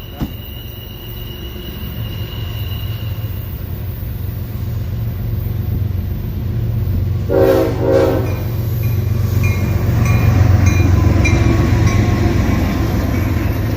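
Approaching diesel locomotive rumbling louder and louder. About seven seconds in it gives one short blast, briefly broken, of its Nathan K5HLB five-chime air horn. The locomotive is a GE ES40DC. Once the locomotive draws near, the rumble is joined by regular ticking.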